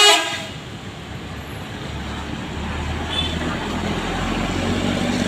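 The tail of a tour bus's loud multi-tone telolet horn cuts off just after the start, then steady traffic noise with a low diesel engine rumble that grows from about two seconds in.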